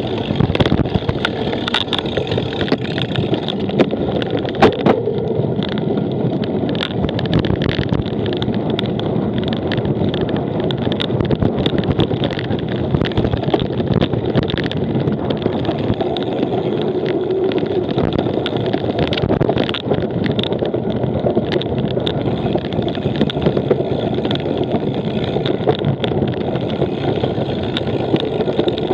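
Cyclocross bike ridden over rough ground: a steady rumble of tyres and wind on the microphone, with frequent rattling knocks from the bike throughout.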